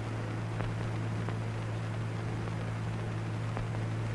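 Background noise of an old film soundtrack: a steady low hum and an even hiss, with a few faint clicks.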